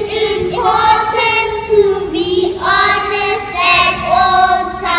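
A small group of children singing together, holding long notes in a melody that slides between pitches.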